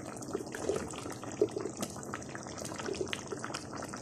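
Creamy chicken and vegetable sauce bubbling in a pot, with many small irregular pops; one sharper click about a second and a half in.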